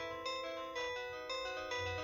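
Samsung SCH-X600 mobile phone playing one of its built-in melody ringtones: a synthesized tune with several notes sounding together and a new note about every half second.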